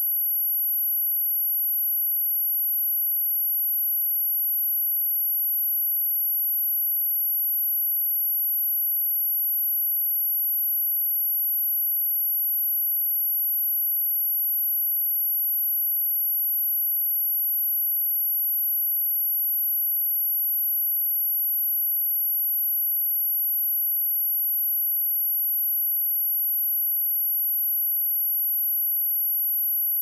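Pure 11,721 Hz sine-wave test tone, a single steady high-pitched whine used for speaker testing.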